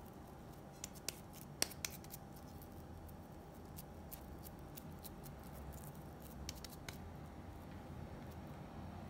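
Faint sticky clicks and smacks of wet hands pinching off and pressing raw lamb mince into flat köfte patties, with a few sharper clicks between one and two seconds in and again near seven seconds, over a low steady room hum.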